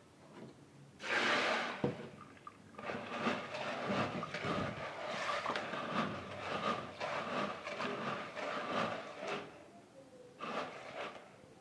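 Dried pigeon peas being washed in water in a plastic basin: a brief splash about a second in, then several seconds of swishing with many small clicks as the peas are stirred and rubbed in the water, and another short splash near the end.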